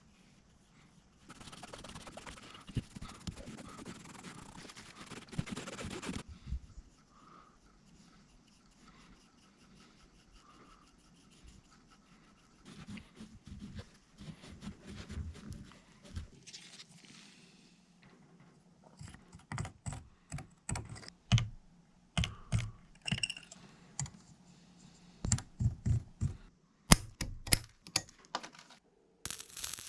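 Workbench handling noises: a few seconds of steady hiss near the start, then scattered light clicks and taps that grow more frequent toward the end.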